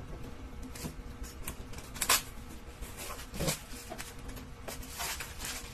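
A blade scratching and slitting the plastic shrink wrap on a phone box, with the plastic rustling as it is worked loose: a handful of short scrapes, the loudest about two seconds in.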